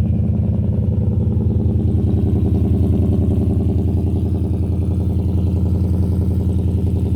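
Ford 5.0 L V8 of a 2019 F-150 idling steadily through high-flow catalytic converters and a 4-inch Magnaflow stainless-steel exhaust, a deep, even note.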